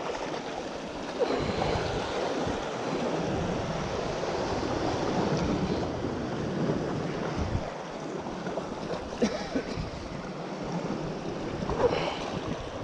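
Sea waves washing against rocks, with wind rumbling on the microphone.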